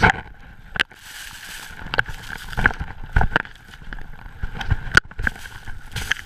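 Skis cutting through deep powder snow: a rushing hiss of snow with irregular knocks and thumps as the skier turns and bounces down the slope.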